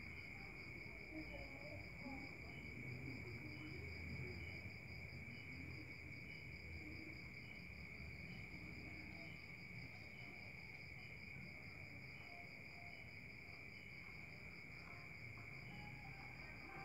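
Insects chirping: a steady high-pitched trill with a faster pulsing chirp above it and a slower chirp about twice a second, all faint and unbroken.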